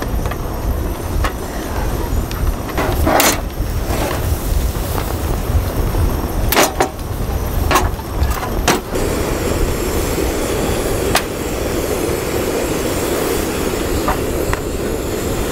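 Strong wind buffeting the microphone with a steady low rumble, and a few sharp clanks as the panels of a folding metal stove windscreen are unfolded and set in place.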